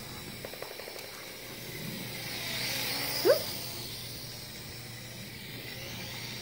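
Small toy quadcopter's propellers whining steadily, swelling as it flies close and fading again. A short, sharp rising squeak cuts through about three seconds in.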